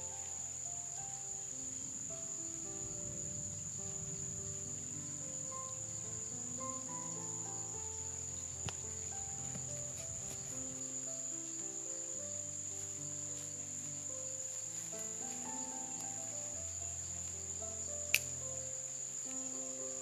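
Insects buzzing steadily in a high, unbroken drone, under soft background music of slow held notes. A sharp click sounds once near the end, with a fainter one about halfway through.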